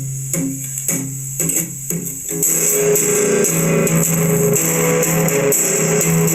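Instrumental passage of a song: plucked guitar notes over a bass line, then the full band comes in louder and denser a little over two seconds in.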